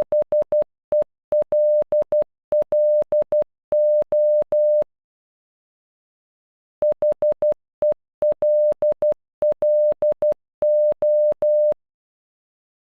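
Computer-generated Morse code tone spelling "HELLO" (.... . .-.. .-.. ---) in short dots and longer dashes of one steady beep. The word is sent twice, with a pause of about two seconds between.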